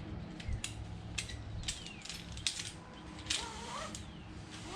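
Ratchet strap being cranked tight, its pawl clicking with each throw of the handle: a string of sharp clicks about half a second to a second apart.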